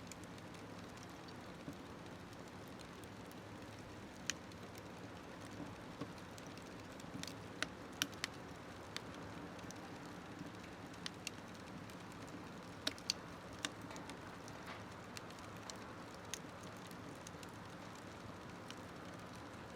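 Wood fire burning in a small smokeless stove: a steady low rustle of the flames with sharp crackles and pops at irregular intervals, several close together about eight and thirteen seconds in.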